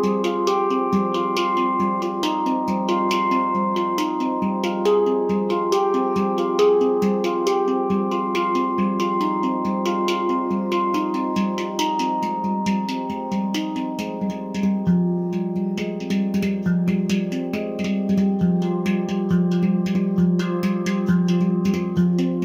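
Nimo Sounds handpan in F low Pygmy tuning, played by hand: a continuous stream of quick finger strikes, each sounding a ringing metal note, the notes overlapping and sustaining into one another with a deep low tone underneath.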